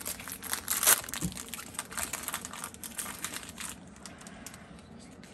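Foil Pokémon booster-pack wrapper being torn open and crinkled by hand: a dense run of crackles, loudest about a second in, dying down after about four seconds.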